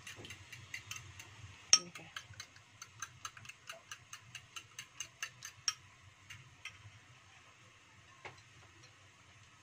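Metal spoon beating eggs in a ceramic bowl, clinking against the bowl about three or four times a second, with one much louder clink just under two seconds in. The beating stops about two-thirds of the way through.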